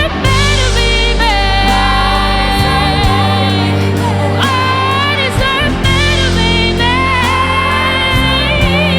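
A rock band plays live: electric guitars, bass guitar and drums, with a long held lead melody that wavers and slides between notes on top.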